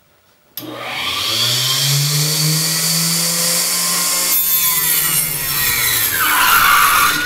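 Harbor Freight 4-inch Mighty Mite table saw cutting a small block of oak. It starts abruptly about half a second in, and its motor hum rises slightly and then sags under a loud hissing cut.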